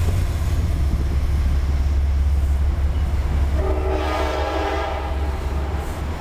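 Metro-North passenger train rolling past with a steady low rumble of its coaches. About three and a half seconds in, a multi-tone train horn sounds for under two seconds.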